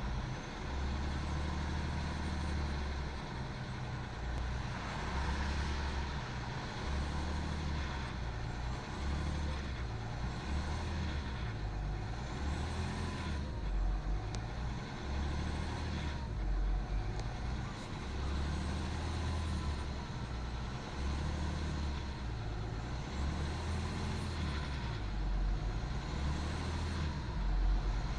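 BMW E39 530d's 3.0-litre straight-six diesel running, its pitch rising and falling several times as it is revved and let back down. It has a rattle that is most noticeable when the throttle is released, which the owner suspects is the timing chain.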